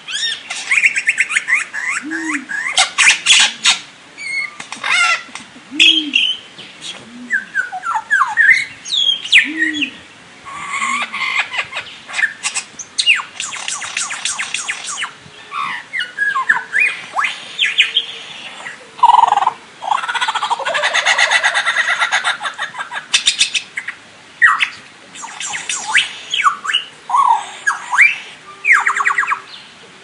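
Lyrebird calling in a long, varied run of sounds: whistled notes sweeping up and down, rapid clicking rattles, and short low hooting notes, one after another with brief gaps.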